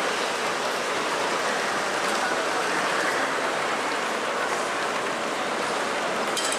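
Steady din of a crowded exhibition hall: many voices and model trains running on the layout merge into an even hiss.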